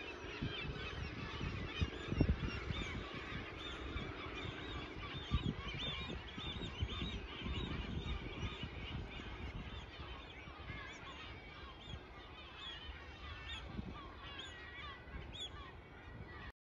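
A flock of birds calling, many short overlapping calls that thin out somewhat over the last few seconds, over low rumbling bumps.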